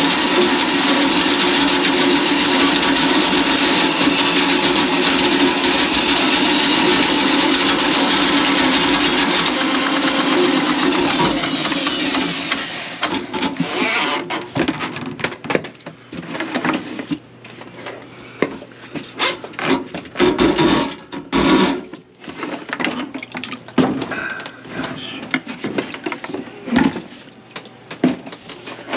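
A small motor running steadily and loudly with a low hum, then after about twelve seconds stopping and starting in short, irregular bursts.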